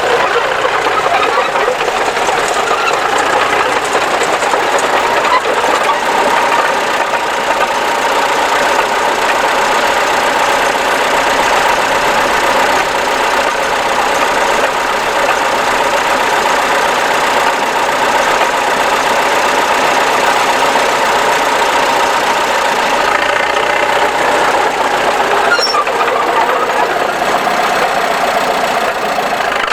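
Tractor engine running steadily under way. Its note drops a little about three-quarters of the way through.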